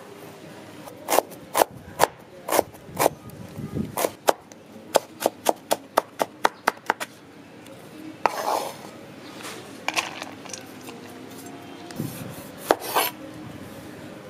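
Chef's knife chopping carrot on a wooden cutting board: sharp knocks of the blade on the wood, about two a second and then quicker, about three a second, stopping about halfway. A few scattered knocks and scrapes of the knife on the board follow.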